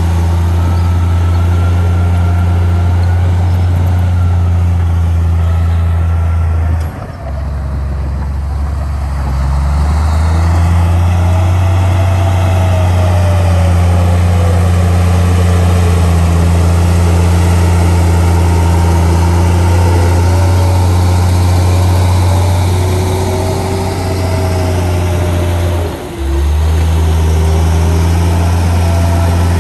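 Diesel engine of an old Komatsu crawler bulldozer running steadily under load while pushing soil, a deep even drone with a faint whine that drifts in pitch. The drone drops away briefly about seven seconds in and again near the end.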